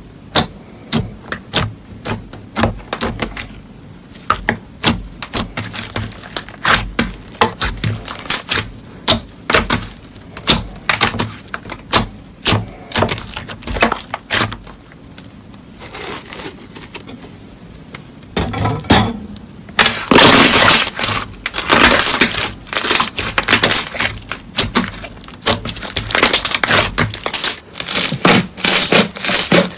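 Slime being squeezed and pressed, giving many sharp crackles and pops. From about twenty seconds in the crackling becomes denser and louder, like crunchy slime being crushed.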